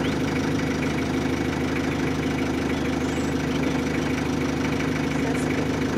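A vehicle's engine idling steadily with an even, low hum.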